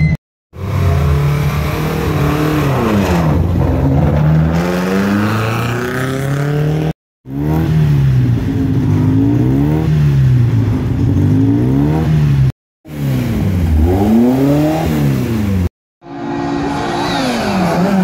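Historic competition cars' engines, heard in several short clips cut together. They rev hard, and their pitch climbs and falls again and again as the throttle is blipped and the cars pull away and pass.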